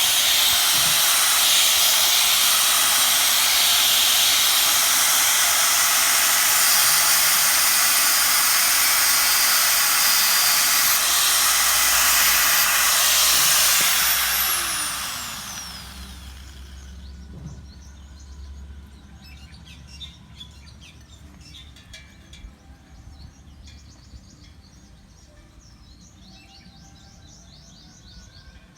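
Angle grinder running on metal with a loud, steady hiss for about fourteen seconds, then switched off and spinning down with a falling whine. Faint bird chirps follow.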